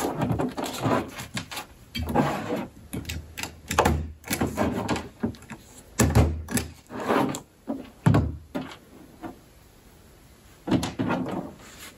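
Construction paper being folded and handled on a tabletop, with several dull thunks from a desktop stapler pressing down through the folded paper pennant, the loudest about six and eight seconds in.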